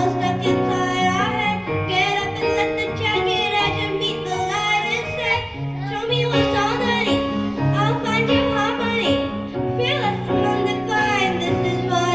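Pop song backing track with sustained chords and a solo female voice singing over it, the voice sliding and wavering between held notes.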